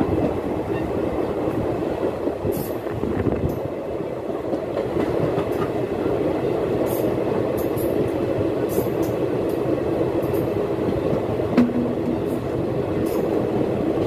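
Express passenger train running at speed, heard from an open coach doorway: a steady rumble of wheels on the rails with scattered sharp clicks. One louder click comes about three quarters of the way through.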